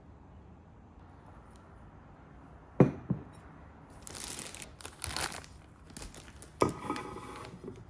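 Handling noises: two sharp knocks about three seconds in, then two bursts of crinkling and tearing like wrapping being handled, and another knock followed by rustling near the end.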